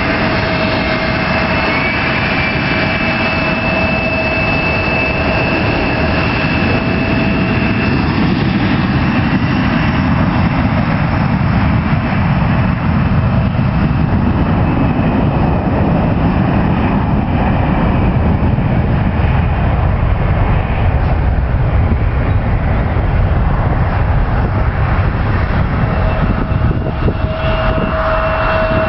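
Boeing 737-500's CFM56 turbofan jet engines during takeoff. A steady high whine at first, then a deep rumble builds and stays strong for most of the clip, and the whine comes back near the end.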